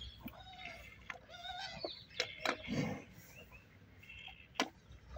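Water buffalo drinking from a metal tub: faint slurps and gulps with a few sharp clicks. Short wavering animal calls come from farther off in the first two seconds.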